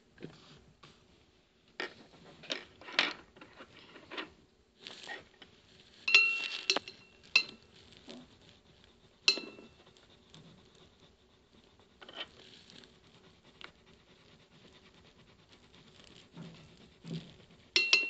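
Pencil strokes scratching on sketchbook paper in short, irregular bursts as a drawing is coloured in. A few sharp clinks that ring briefly, like a hard object knocking on the desk, are the loudest sounds: twice about six seconds in, again near nine seconds and near the end.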